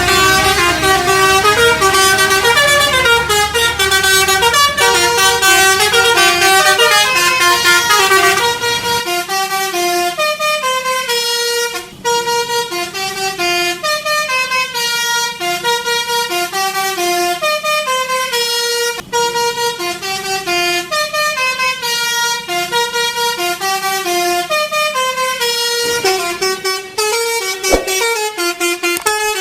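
Basuri-type telolet bus horn playing tunes as a quick run of stepped, multi-pitched horn notes. A low rumble sits under the notes for the first nine seconds or so, then drops away, and the melody breaks off briefly twice.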